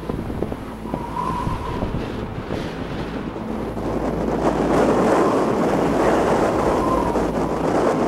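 Mountain wind buffeting a camcorder microphone, a rough rumbling rush that grows stronger about halfway through.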